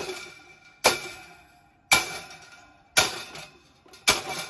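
Vintage Hoover E1024 desk fan being struck, four sharp clangs about one a second, each ringing out and fading before the next.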